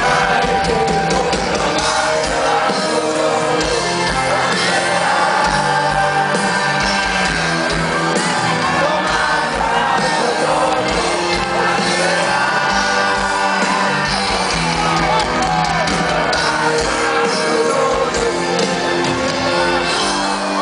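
Live rock band and singer playing at full volume, heard from within the audience, with fans shouting and singing along.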